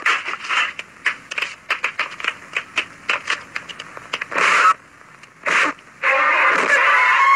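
Rapid, irregular punch and blow sound effects from a fistfight on an old film soundtrack, with two longer noisy hits about four and a half and five and a half seconds in. A louder, continuous sound comes in about six seconds in as the film's music starts.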